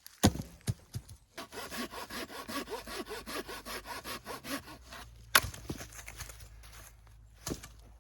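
Hand saw cutting wood in quick, even back-and-forth strokes for about three seconds, with a few knocks before it and a sharp knock on wood a little after.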